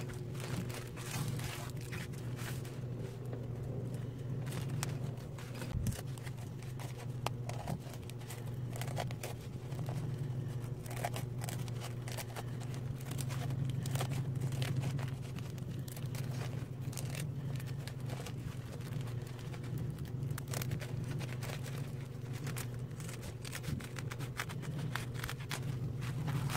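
Woven plastic rice sack crinkling as it is handled and cut with scissors, with irregular snips and rustles over a steady low hum.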